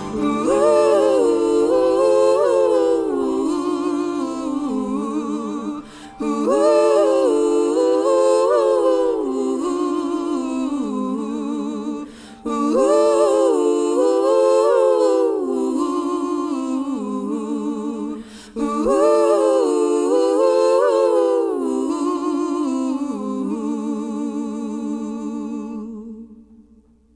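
Wordless a cappella humming of the song's melody in four phrases of about six seconds each, the last one fading out near the end.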